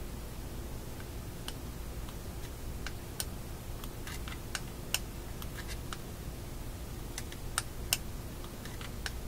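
Scattered light clicks and taps of the small metal parts of a Philco shadow meter being handled and fitted together in the fingers, a few sharper clicks among them, over a steady low hum.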